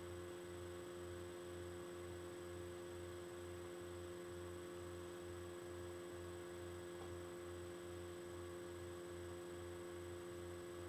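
Steady electrical hum with a low throb that pulses about twice a second.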